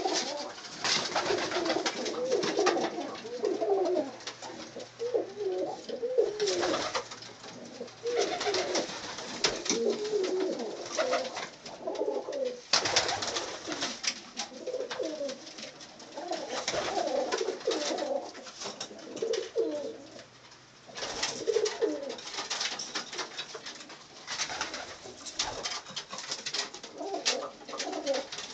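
Budapest highflyer pigeons cooing over and over in a small loft, with many overlapping rising-and-falling coos. Frequent short scratchy noises run through it.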